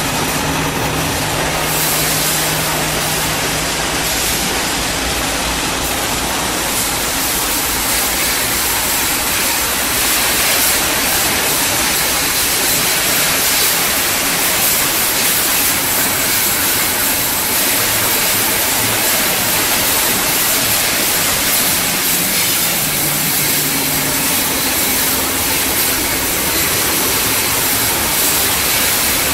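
PVC wire-coating extrusion line running: a loud, steady hiss with a faint low motor hum underneath.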